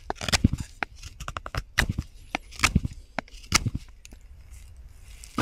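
Knife whittling a dry stick: a quick, irregular run of sharp cracks and snaps that thins out about four seconds in.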